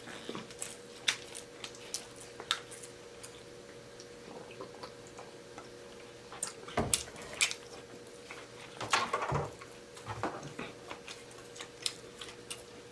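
Scattered small clicks, smacks and knocks of someone eating chicken off the bone, over a faint steady hum.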